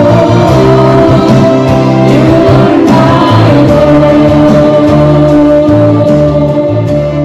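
A small group of women singing a slow gospel worship song into microphones, with long held notes over instrumental backing. It gets somewhat quieter near the end.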